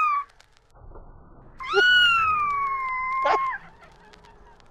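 Domestic cat meowing: the tail of a short meow right at the start, then one long drawn-out meow of about two seconds that starts high and sinks slightly in pitch before breaking off.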